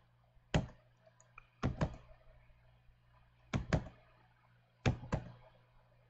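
Computer keyboard keys pressed one at a time: seven short sharp taps, mostly in quick pairs, over a faint low hum.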